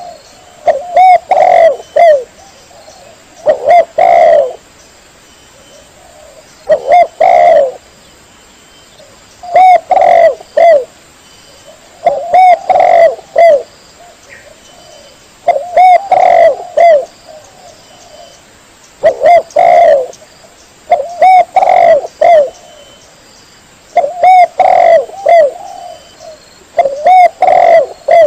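Spotted dove (tekukur) cooing: a phrase of several coos repeated about every three seconds.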